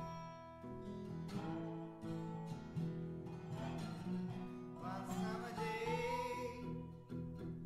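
Acoustic bluegrass-blues music: guitar picked and strummed, with a gliding, wavering melody line coming in about halfway.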